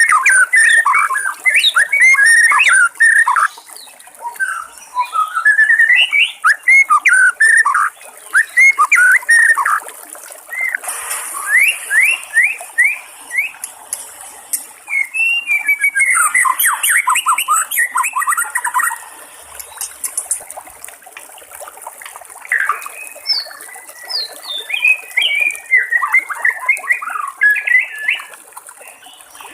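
White-rumped shama singing: bouts of rapid, varied whistled phrases with short pauses between them, including a run of quick rising notes about halfway through.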